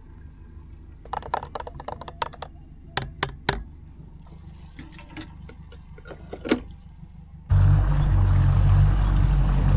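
Small metal camp cook-set pieces clicking and knocking as they are fitted together, with a cluster of quick taps and then a few single hard knocks. About three-quarters of the way through it cuts abruptly to a boat under way: a steady low engine drone with rushing wind and water.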